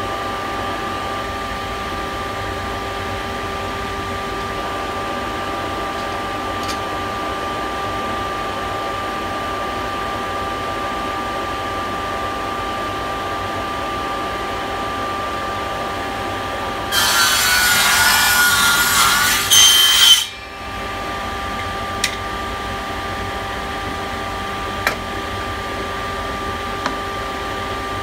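Table saw running steadily with a constant whine. About 17 seconds in, the blade cuts an angled scarf through a strip of 15 mm birch plywood held in a clamped jig, for about three seconds. A few light knocks follow.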